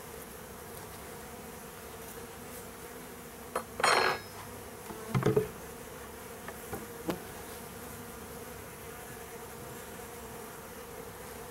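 Honey bees from a freshly installed package buzzing in the hive, a steady hum. A brief scrape about four seconds in and a knock a second later, with a couple of light clicks after.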